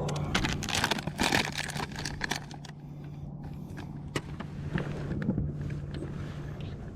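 Handling noise of small gear being worked with the hands: a dense run of clicks and rattles in the first two seconds or so, then scattered single clicks, over a steady low hum.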